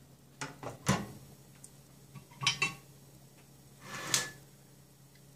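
Handling clatter at a workbench: a printed circuit board being turned over and set down on a wooden desk, and a soldering iron being handled. There are three clusters of short knocks and clicks, about a second in, about two and a half seconds in, and near the end, the loudest about a second in.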